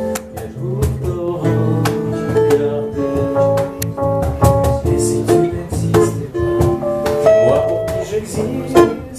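Instrumental passage of a French chanson: acoustic guitar playing chords under a held, sustained melody line, between sung verses.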